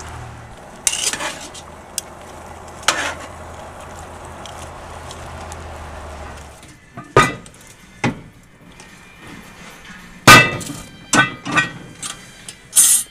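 Beef cubes and bacon dropped into a liquid-filled cast-iron Dutch oven, with a few soft hits over a steady low hum. Then about six sharp metal clanks as the cast-iron Dutch oven and its lid are handled and set on the smoker's metal grate, the loudest about ten seconds in.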